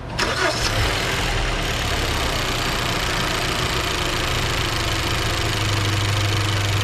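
A 2014 Hyundai's engine cranking and catching within the first second, then idling steadily.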